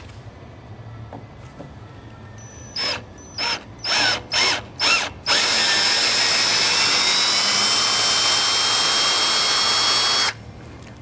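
Power drill run in five short trigger bursts, then held steadily for about five seconds, working a broken brass screw out of old door lumber.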